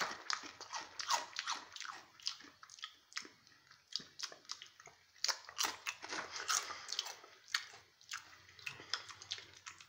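A mouth biting into and chewing a crunchy wavy potato chip: irregular crisp crunches with short pauses between them.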